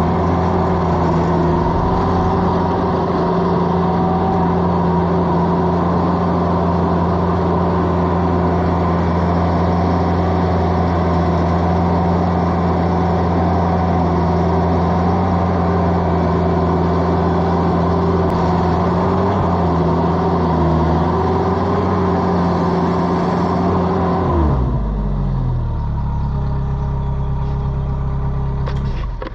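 Mini skid steer's engine running steadily at high throttle, then throttled down near the end, its pitch falling quickly to a lower idle.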